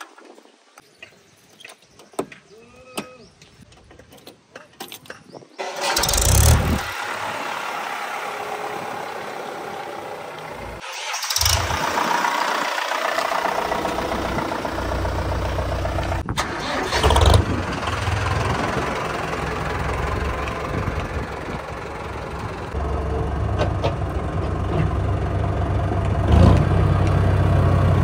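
After a few faint clicks, a diesel tractor engine starts with a loud burst about six seconds in. It then runs at a steady low idle, with a couple of brief surges, and gets louder near the end.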